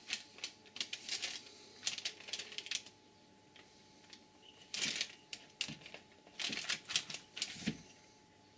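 Clicks and light knocks of an aluminium air-compressor cylinder head and its valve plate being handled and turned over on a bench. Quick bunches of sharp taps fill the first three seconds, then a short pause, then more taps from about five seconds in.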